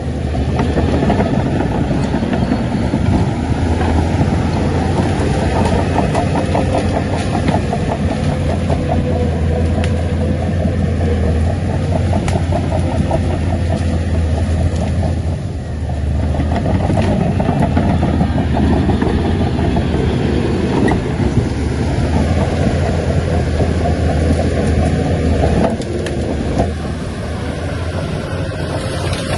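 Shantui crawler bulldozer's diesel engine running under working load, a loud steady low drone that eases briefly about halfway through and drops somewhat a few seconds before the end.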